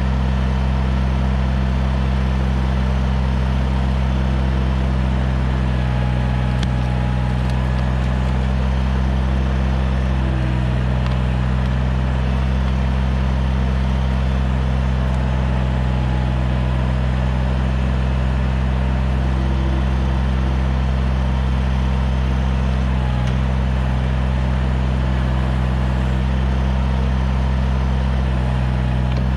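Kubota BX sub-compact tractor's three-cylinder diesel engine running steadily at a constant speed while working the backhoe, with a few faint clicks over it.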